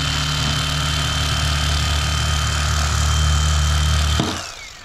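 Bubba electric fillet knife running with a steady motor hum and a high whine as it trims the red meat off a striped bass fillet. It switches off about four seconds in, and the whine falls away as the blades spin down.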